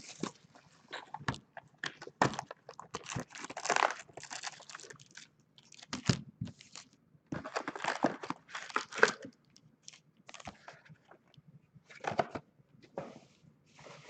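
A sealed box of trading-card packs being torn open, its plastic wrapping and packs ripped and crinkled in irregular crackles and short tearing bursts.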